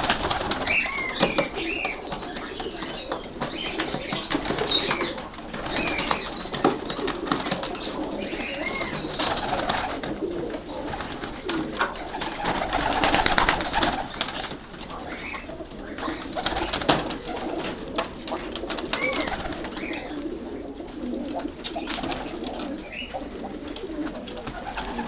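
Iraqi pigeons in a loft cooing, a continuous chorus of many birds, with scattered short clicks and scuffs among them.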